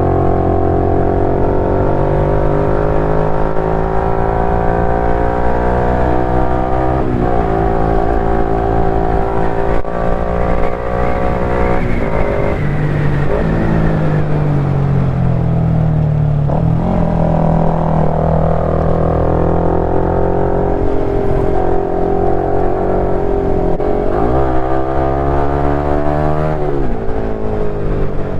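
KTM 390 Duke's single-cylinder engine under way, its note climbing as it accelerates and dropping at each of several gear changes.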